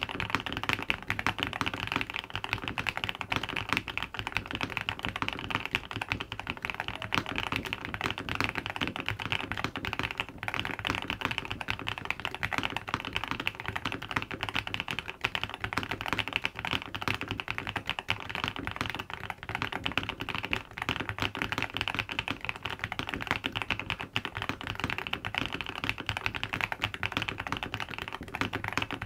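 Fast, continuous typing on a 75% mechanical keyboard: a dense, unbroken stream of keystroke clacks with no pauses.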